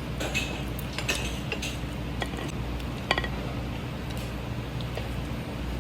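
Eating utensils clicking and clinking against a dish in short irregular taps while squid sashimi is eaten, over a steady low hum.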